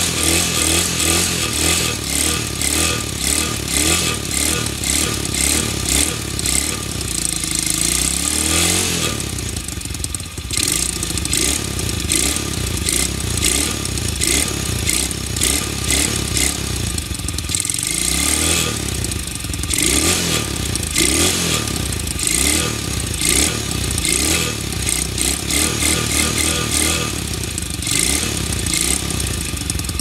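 Apollo RZF 125cc pit bike's single-cylinder four-stroke engine running while stationary, revved up about eight seconds in and again around eighteen to twenty seconds in.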